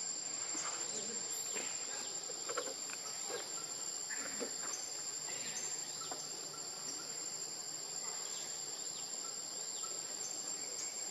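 Steady chorus of insects: a constant high-pitched buzz with a thin whine above it, with faint scattered clicks and rustles.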